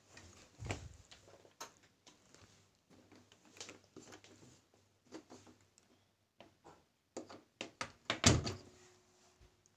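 A string of irregular door-like knocks and thuds, the loudest a heavy thump a little after eight seconds in.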